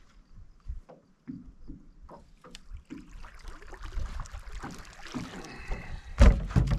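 Water splashing and sloshing with scattered knocks, building up in the second half, with a heavy thump near the end.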